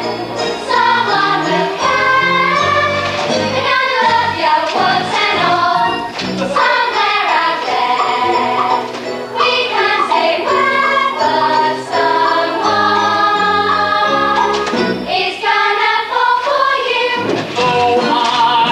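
Stage musical song number: a cast singing together over band accompaniment with a steady bass line.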